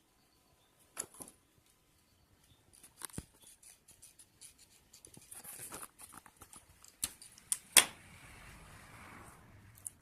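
Insulation being stripped from a thick solar DC cable: scattered sharp clicks of the tool with scraping and rustling as the insulation is worked off, the loudest click late on.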